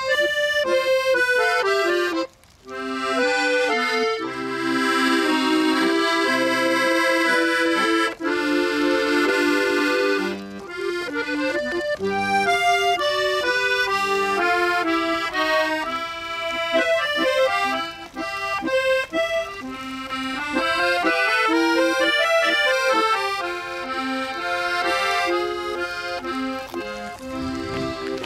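Accordion duo playing a tune together, one of the instruments a Hohner piano accordion, with full held chords under a moving melody. The music stops briefly about two seconds in, then carries on.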